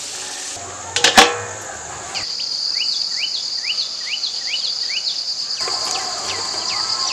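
A couple of sharp knocks about a second in, then evening insects set up a steady high-pitched trill, with repeated short rising chirps about two a second over it.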